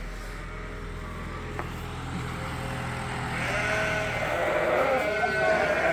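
Sheep bleating, in long drawn-out calls, over a low steady engine hum that stops about four and a half seconds in.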